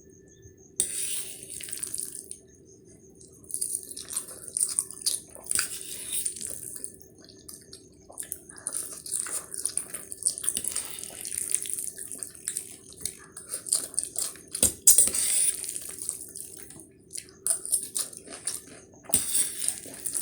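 Close-miked slurping and chewing of Maggi instant noodles, in irregular wet bursts with small clicks, over a faint steady hum.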